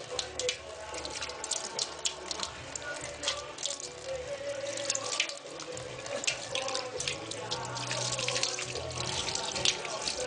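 Running tap water splashing over a puppy as it is rinsed during a bath, with many irregular small splashes and drips.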